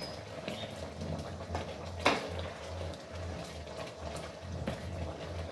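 Pork in sauce simmering and bubbling in an electric cooking pot while a spatula stirs it, with small clicks and scrapes against the pot and one sharper knock about two seconds in.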